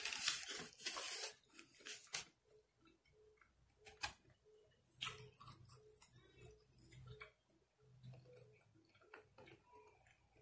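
Hands tearing apart a whole rotisserie chicken: a loud crackling rip of skin and meat in the first two seconds, a sharper snap or two a few seconds later, then quieter pulling and handling. A faint steady tick about twice a second runs underneath.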